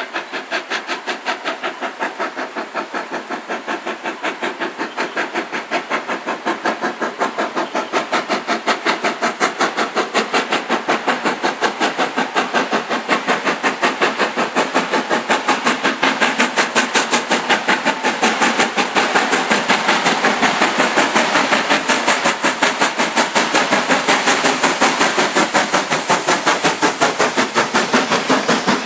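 Southern Railway S15 4-6-0 No.825 steam locomotive working hard, its chimney exhaust beating in a fast, steady rhythm that grows louder as it comes closer.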